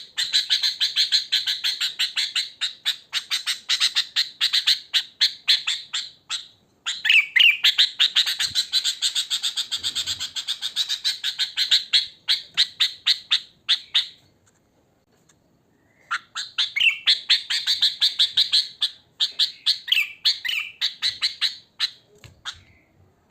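Sooty-headed bulbul (kutilang) calling in fast runs of short, sharp notes, several a second. It calls in three long bouts, with a brief break about six seconds in and a longer two-second pause about two-thirds of the way through.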